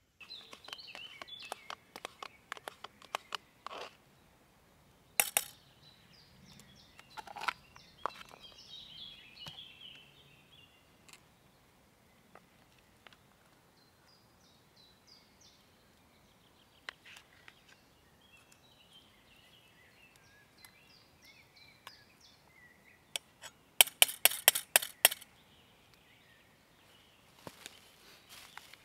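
Birds chirping over scattered sharp clicks and clinks, with a quick run of loud clicks late on.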